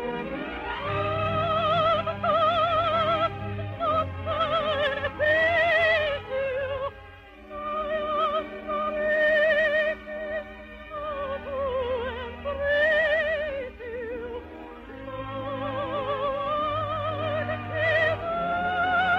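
Operetta soprano singing long held notes with a wide, fast vibrato over orchestral accompaniment, with short breaks between phrases.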